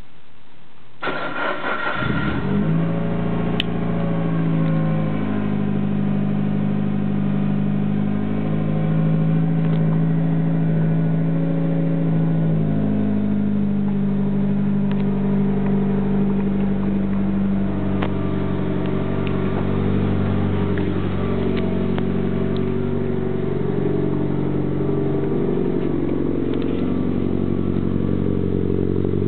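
The Evo's engine being started for the first time: a brief crank about a second in, then it catches. It runs at idle with the engine speed wandering up and down.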